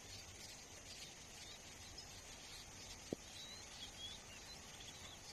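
Faint outdoor ambience of small birds chirping: scattered short chirps over a steady high hiss, with a single sharp tick about three seconds in.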